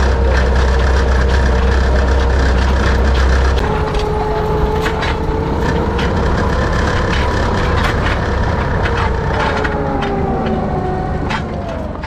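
Tractor engine running steadily while towing a New Holland rolabar hay rake, with scattered clanks and rattles; the engine note changes about three and a half seconds in, and slows and falls near the end.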